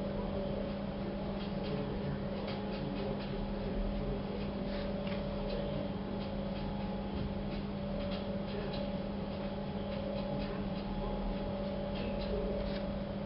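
Short, irregular scratchy strokes of a drawing tool, over a steady electrical hum.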